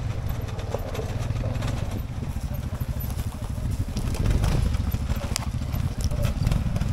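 ATV engine running with a low, rapid firing pulse, a little louder in the second half, with a few sharp clicks or knocks.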